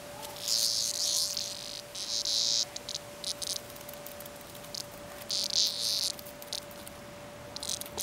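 A cicada buzzing in harsh, high-pitched bursts of about a second each, with shorter blips between, as a cat paws at it: the insect's distress buzz when disturbed.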